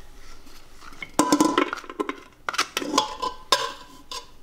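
A knife scraping and knocking against the rim of a metal cooking pot as chopped garlic is pushed in. The pot rings briefly after each knock, and the knocks come in a quick run from about a second in.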